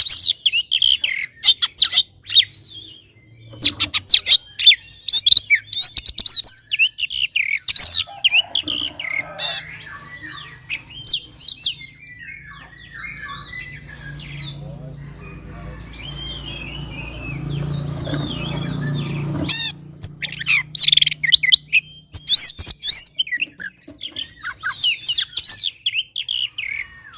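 Oriental magpie-robin (kacer) singing its aggressive fighting song: loud bursts of rapid, varied chirps and whistles. Through the middle the song turns quieter over a low steady hum, and the loud bursts return about twenty seconds in.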